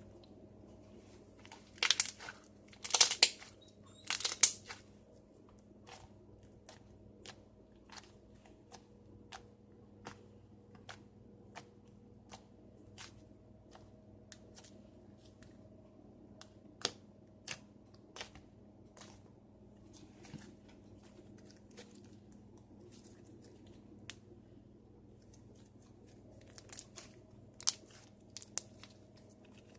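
Hot homemade slime being squished and worked for ASMR while it cools. There are bursts of crackling and popping about two seconds in and again near the end, with single sharp pops and clicks every second or so in between.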